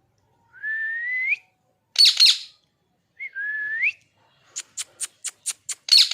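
Pet parrot giving two rising whistles, each followed by loud harsh squawks, with a quick run of about seven short sharp calls in between.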